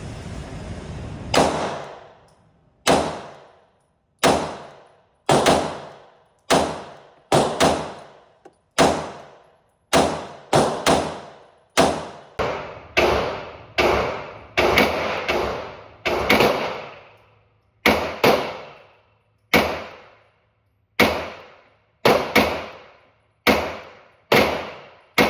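Glock 17 9mm pistol being fired, about thirty shots at an uneven pace, some in quick pairs and some a second or more apart, each with a ringing tail.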